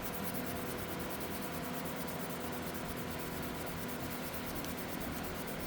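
A cloth rubbing over a lightly rusted steel hand tool, a steady scrubbing hiss as the rust is wiped off, with a faint steady hum underneath.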